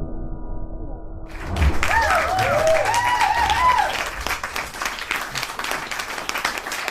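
A muffled low hum gives way, about a second in, to a crowd clapping and cheering, with rising-and-falling whoops for a couple of seconds before the cheers fade and the clapping goes on.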